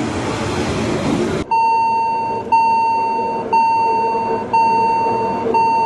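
Narrow-gauge train coaches rolling past on the rails, cut off after about a second and a half by a level-crossing warning signal: a loud electronic tone sounding for nearly a second and repeating about once a second as the locomotive approaches the road crossing.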